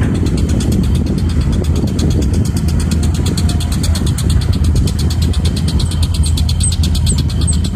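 Heavy diesel engines running steadily as an excavator works beside an idling dump truck: a low rumble with a fast, even ticking over it.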